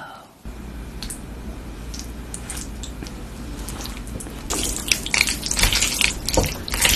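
Thick ganjjajang black-bean sauce pouring and dripping from a bowl onto noodles, with soft wet drips over a low steady hum. About halfway through it gives way to louder, denser sticky squelching and clicking as chopsticks lift and toss the sauced noodles.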